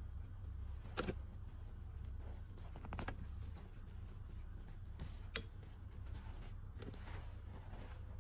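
Soft handling sounds of a plastic fashion doll and a satin doll dress being fitted onto it: a few light clicks and rustles over a steady low hum.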